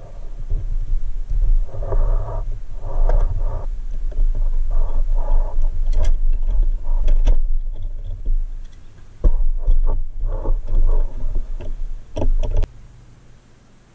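Hands working steel toy forklift parts and a C-clamp: repeated rubbing and scraping with several sharp metal clicks, over a low rumble that cuts off shortly before the end.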